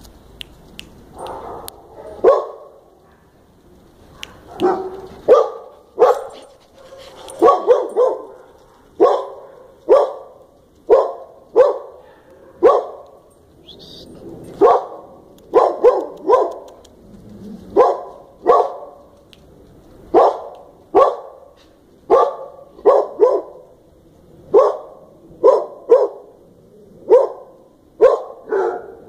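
A dog barking over and over, single short barks roughly once a second, starting about two seconds in.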